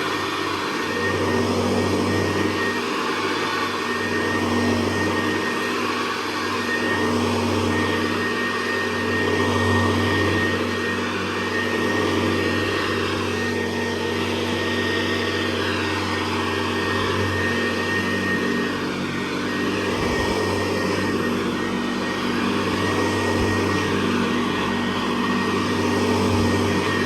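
A 1961 Hoover Convertible Model 68 upright vacuum cleaner running while it is pushed over the floor. It holds a steady hum with a constant high whine, and its loudness swells and fades gently every couple of seconds.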